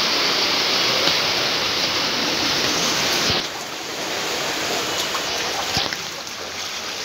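Floodwater rushing and splashing as a car drives through a flooded street. About three and a half seconds in, the sound cuts to quieter water running past a parked car's wheel.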